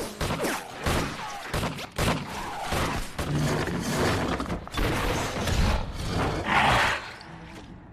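A rapid volley of pistol gunfire, many sharp shots in quick succession, with a louder noisy burst about six and a half seconds in.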